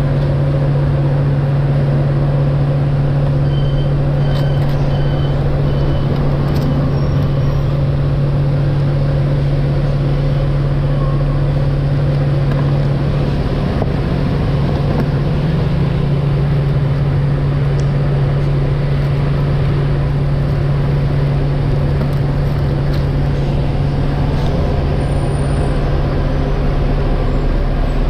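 Steady low mechanical hum over a constant noisy din, with a few faint short high beeps a few seconds in.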